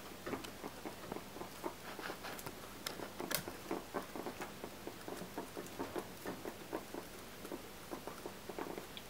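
Long-haired guinea pig nibbling at hay with its head down in the bedding: quick, regular crunching clicks, several a second.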